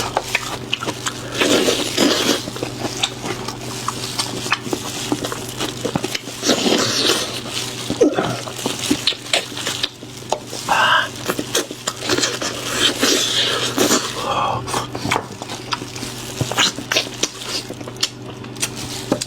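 Close-miked eating sounds: irregular wet chewing and mouth noises with utensils clicking against dishes, over a steady low hum.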